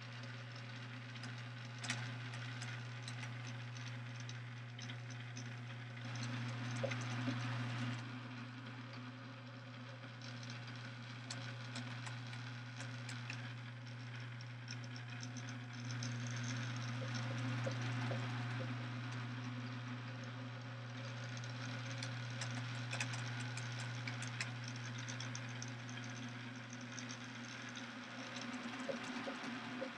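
Small electric motor driving a kinetic diorama's mechanism: a steady hum with light clicking and rattling from its moving parts, swelling a little now and then.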